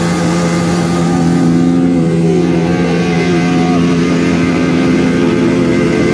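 Motorcycle engine held at high revs while it spins the rear tyre against paving stones in a burnout, its note steady.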